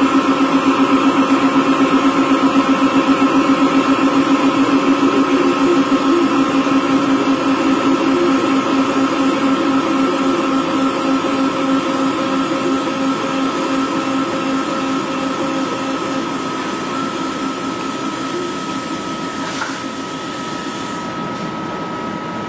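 CNC lathe machining inside a metal cylinder with a small collet-held cutting tool: a steady machine hum with a rapid flutter over the first several seconds, over higher steady whining tones. It slowly gets quieter.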